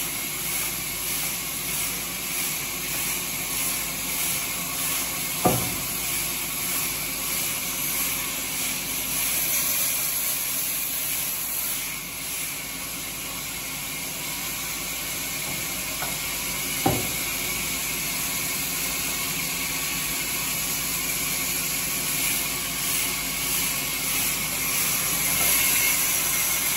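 Sawmill band saw ripping a timber log: a steady hissing rasp of the blade through the wood over a low steady hum, with two sharp knocks, about five and seventeen seconds in.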